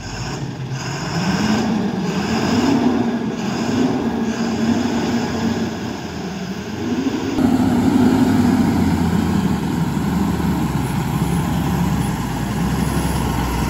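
Diesel engine of a heavily loaded 14-tyre Ashok Leyland truck pulling uphill round a hairpin bend, its note rising and falling. About seven seconds in it turns into a louder, steadier low drone as the truck passes close by.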